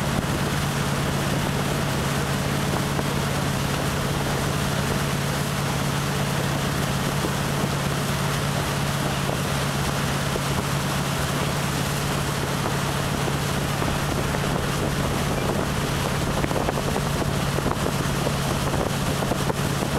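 Motorboat under way, its engine running with a steady low drone over the rush of its wake, with wind on the microphone.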